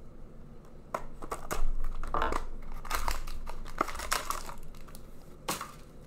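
Foil wrapper of a hockey trading card pack crinkling and tearing as it is ripped open by hand, with irregular sharp crackles and one louder crack near the end.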